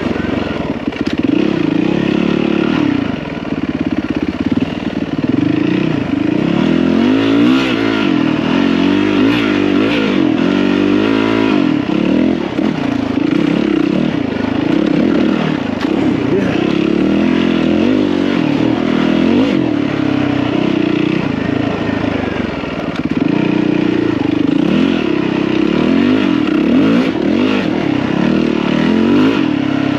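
Yamaha WR450F dirt bike's single-cylinder four-stroke engine under way, its pitch rising and falling over and over as the throttle is worked on and off.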